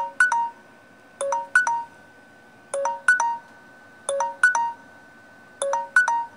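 Mobile phone ringtone: a short electronic phrase of three or four quick beeping notes, repeated about every one and a half seconds.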